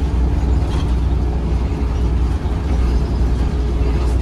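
Volvo B7RLE single-decker bus's six-cylinder diesel engine running, heard from inside the bus as a loud, steady low drone with a faint steady whine over it.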